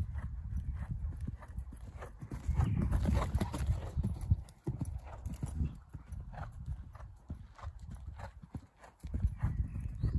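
Young grey horse's hooves thudding on the sand arena footing as it canters on the lunge, in an uneven run of strikes that swells at times as the horse passes closer.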